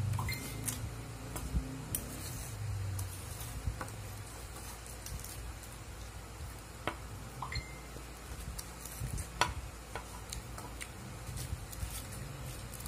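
Spoon and plastic fork scraping and tapping in a foil-lined takeaway food tray while eating, with scattered sharp clicks over a steady low hum.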